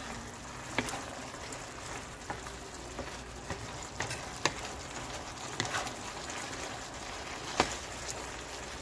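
Diced potatoes and chicken breast sizzling in tomato juice in a frying pan while a wooden spatula stirs them, with scattered light scrapes and taps of the spatula against the pan; the sharpest taps come about halfway through and near the end.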